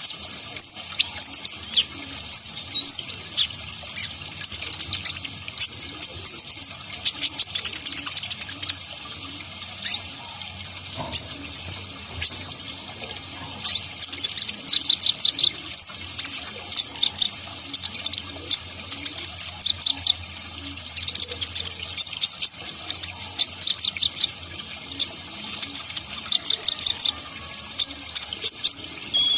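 Female kolibri ninja, a sunbird, singing: clusters of rapid, high-pitched chirps and short trills, each run lasting a second or two with brief gaps between, over a steady background hiss.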